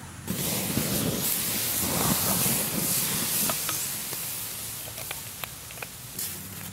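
Water poured from a bottle onto the hot coals in a Dakota fire hole, hissing and sizzling into steam as the fire is put out. It starts suddenly, is loudest for the first few seconds, then fades to a softer hiss with a few small pops.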